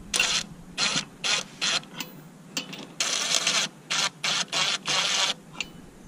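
Ryobi cordless impact wrench hammering on a wheel's lug nuts in a dozen or so short bursts, the longest about three seconds in, as it runs the nuts tight before they are finished with a torque wrench.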